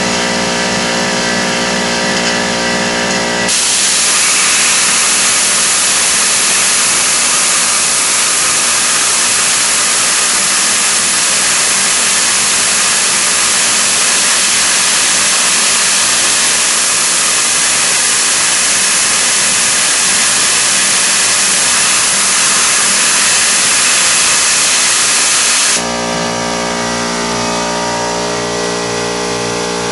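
A Tormach PCNC 1100 CNC mill helically milling holes in 17-4 PH stainless steel with a 3/8-inch four-flute carbide end mill, running with a steady hum of tones. A few seconds in, a loud, steady spray hiss starts and covers everything else; it cuts off suddenly near the end, leaving the steady tones.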